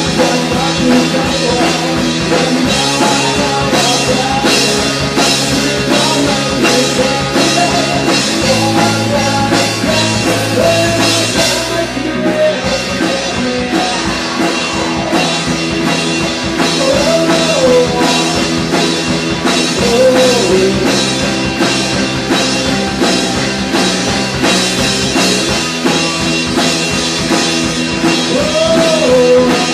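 Live rock band playing: a male lead voice singing over amplified electric guitars and a drum kit keeping a steady beat, with a bass line moving between notes.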